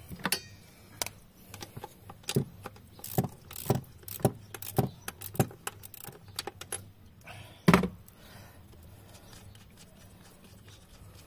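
Ratchet and 10 mm socket on the bolts of a throttle body: a run of sharp metallic clicks and clinks, about two a second, ending in one loud knock.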